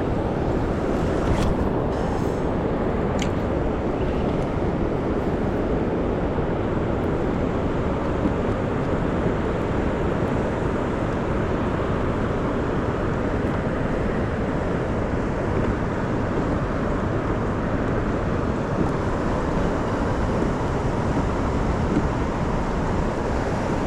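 Steady wind buffeting the microphone outdoors, a dense low rumble with no pauses, with a couple of light clicks in the first few seconds.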